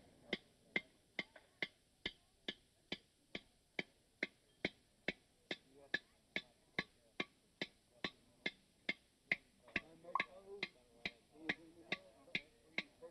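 Blacksmith's hand hammer striking a red-hot iron bar on a notched iron block: a steady rhythm of a little over two ringing blows a second.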